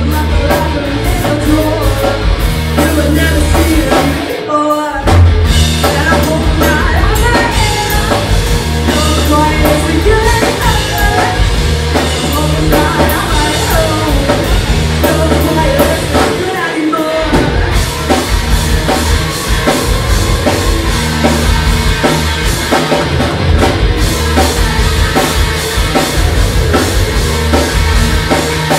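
Live rock band playing: electric bass, electric guitar and drum kit, with a sung vocal. The bass and drums drop out briefly about four and a half seconds in, then the band comes back in.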